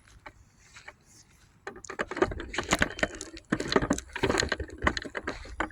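Footsteps crunching and rustling through dry vegetation and debris, starting about a second and a half in, in irregular clusters of crackles.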